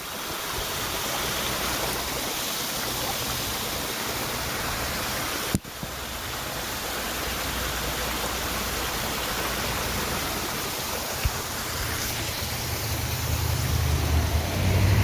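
Water rushing steadily at a beaver-clogged lake drain. Towards the end, a vehicle's engine hum comes in low and grows louder as it approaches.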